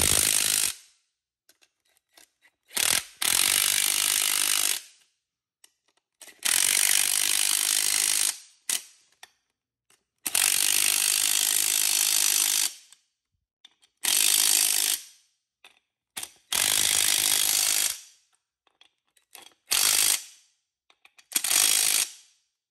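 Ryobi cordless impact driver running the nuts down on the bolts that hold a hub to a brush hog tail wheel, in about eight runs of one to two and a half seconds each with pauses between.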